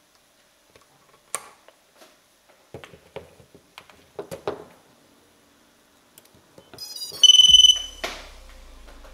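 Small clicks and taps from handling a micro brushless FPV quadcopter. About seven seconds in, its electronics power up with a quick run of short stepped tones from the ESC-driven motors, then a loud steady beep from the onboard buzzer, followed by a low hum.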